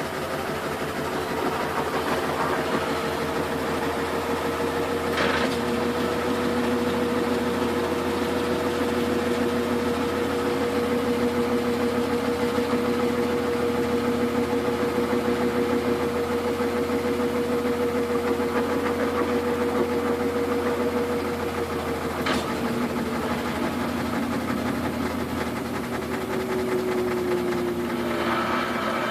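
Samsung washing machine spinning a load of duvets: a steady motor whine and drum hum. About two-thirds of the way through the pitch dips a little and shifts, with another slowly falling tone near the end, and there are two faint clicks along the way.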